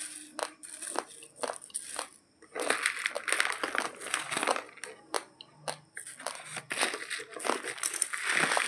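Dry raw basmati rice grains crunching and crackling in a run of sharp clicks, loudest about three seconds in and again near the end.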